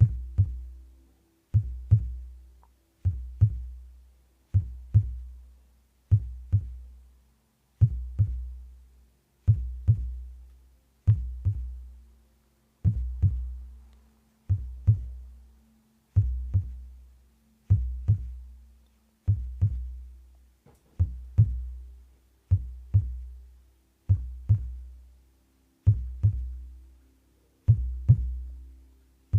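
Slow, steady heartbeat: a deep double thump (lub-dub) about every 1.6 seconds, each beat fading out slowly.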